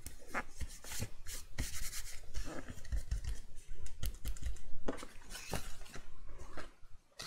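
Patterned card pockets on a papercraft box being pressed down and smoothed by hand: paper rubbing and rustling with many light irregular taps and clicks on the cutting mat.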